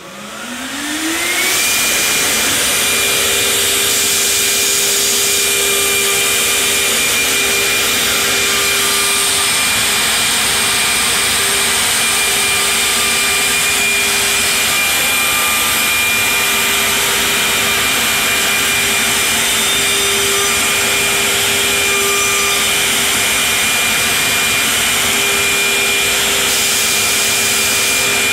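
7-horsepower router spindle of a 5-axis CNC stair routing machine spinning up with a rising whine over the first second or two, then running at a steady pitch over a loud rush while the cutter routes into a wooden stair board.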